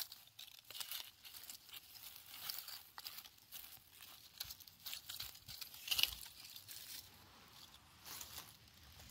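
Irregular rustling and crunching of dry material, with a louder crunch about six seconds in.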